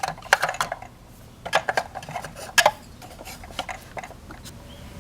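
Small plastic toy pieces clicking and tapping against each other and against a toy refrigerator as they are handled and set in place, a quick series of light knocks that thins out after about three seconds.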